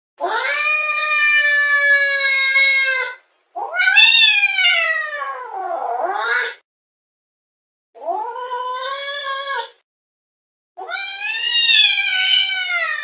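A cat yowling: four long, drawn-out calls with short silent gaps between them. The second climbs and then falls in pitch, and the last is still going at the end.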